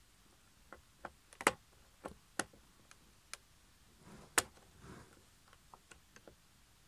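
Irregular clicks and ticks of a small screwdriver tip working at the metal shaft and retaining nut of an EQ potentiometer on a Reloop Mixage CE DJ controller, with two sharper clicks standing out and a short scraping sound in the middle.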